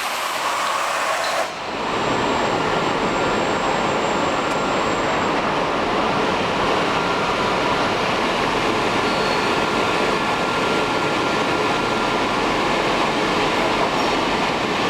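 Fully automatic bottle-cap printing machine running, a steady mechanical noise with a faint thin high tone through it. About a second and a half in the sound changes abruptly to a fuller, slightly louder steady noise.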